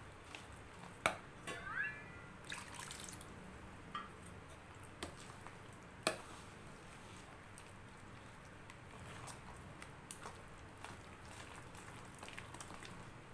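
Metal spoon stirring wet dosa batter in a stainless steel bowl: soft wet squishing with scattered clinks of the spoon against the bowl, the sharpest about a second in and about six seconds in, and a short squeak near two seconds in. The batter is being thinned with water to pouring consistency.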